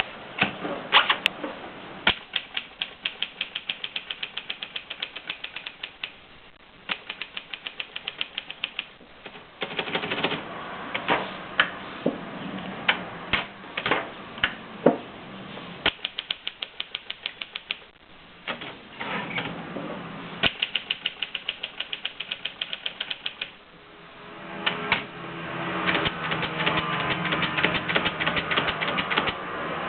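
Manual typewriter being typed on: runs of quick keystrokes, several a second, broken by pauses and single louder strikes. The clatter grows denser and louder near the end.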